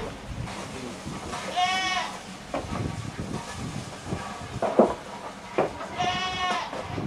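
Saanen goat bleating twice, about four seconds apart, each a short wavering call. Several sharp knocks sound between the bleats.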